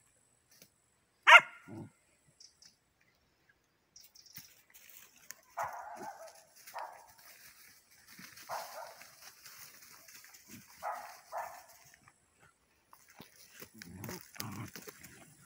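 Dogs at play, Borador puppies among them: one sharp, loud bark about a second in, then a scattering of softer barks, and low growling near the end.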